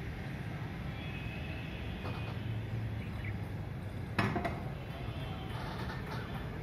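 Noise from a nearby automobile workshop: a steady low rumble, broken about four seconds in by a single loud bang that rings briefly.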